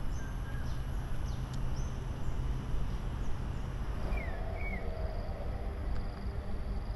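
Wild birds singing in parkland trees: scattered short chirps and whistled notes, with two falling whistles about four seconds in, over a steady background rush and low hum.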